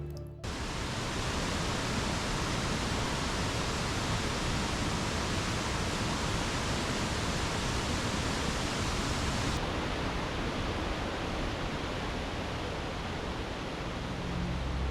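Steady, even rush of fast-flowing water from a swollen mountain stream and its falls, starting abruptly about half a second in.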